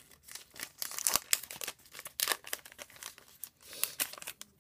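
Crinkling and tearing of a baseball card pack wrapper being opened by hand, a run of irregular sharp crackles.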